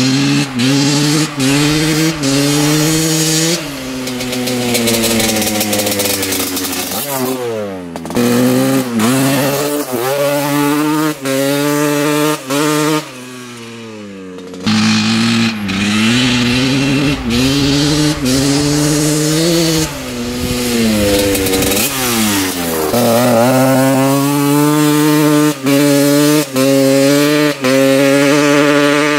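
Dirt bike engine revving up and down over and over, with brief drops in throttle. About halfway through it falls back to a low, quieter spell for a second or two, then revs again.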